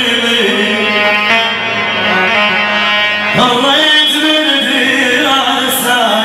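A male singer singing an Iraqi-style song into an amplified microphone over instrumental backing, holding long, wavering notes; about three and a half seconds in he moves to a new, higher held phrase.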